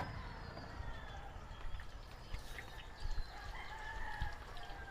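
Faint rooster crowing, with a curving call clearest about three seconds in.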